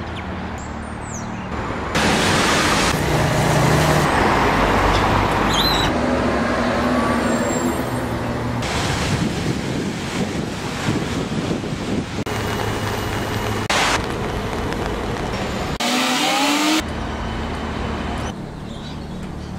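Road traffic and a bus engine on a wet road, heard in short clips that cut abruptly every few seconds. Near the end there is a brief rising motor whine.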